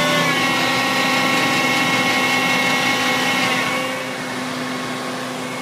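Frac truck's engine idling steadily, a hum with several steady whining tones that dip slightly and get a little quieter about three and a half seconds in.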